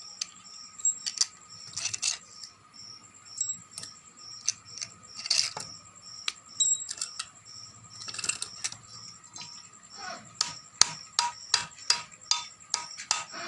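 Sharp metal clicks and knocks as a table-fan motor housing is handled, then from about ten seconds in a quick run of knocks, about three a second: the casing being tapped to free it because it won't pull apart by hand. Faint background music with steady tones underneath.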